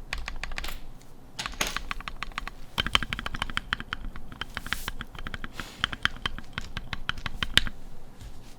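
Typing sound test on a Tofu 60 custom mechanical keyboard with lubed Gateron Milky Yellow linear switches: a fast, steady run of keystrokes with a short pause about a second in. A low rumble sits under the typing at times, which the listener hears as the table rattling.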